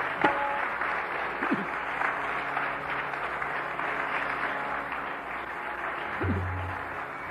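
Concert audience applauding steadily, slowly easing off, with a couple of short low tones from the stage, one about a second and a half in and one near the end.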